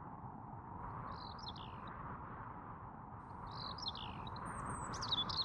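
Birds chirping in three short twittering phrases: about a second in, again near four seconds, and loudest near the end. Under them runs a steady background hiss.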